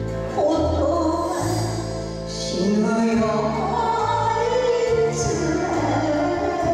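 A woman singing a Japanese enka song into a microphone over a karaoke backing track with a steady, stepping bass line, played through the hall's PA.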